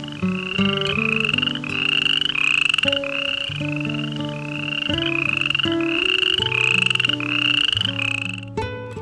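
A small animal's call repeated about twice a second, each call short, buzzy and rising in pitch. The calls stop about eight and a half seconds in. Gentle plucked-guitar background music plays underneath.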